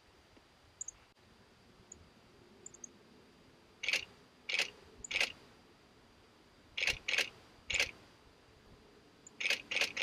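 Nikon D90 DSLR shutter firing single frames, about nine sharp clicks in three quick groups of roughly three.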